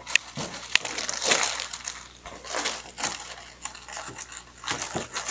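Hands handling a printed fabric pillowcase and its plastic packaging: irregular crinkling and rustling, with a couple of sharp clicks about the first second in.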